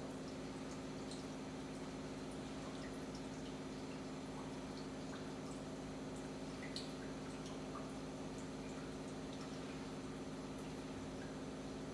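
Reverse-osmosis water purifier running: a steady hum from the unit, with water trickling and dripping from its faucet and drain tube into plastic jugs, in scattered small ticks.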